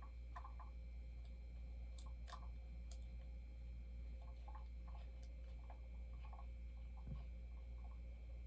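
Faint, scattered light clicks and taps of hands handling the bobblehead figures and fitting them onto their base, over a steady low hum.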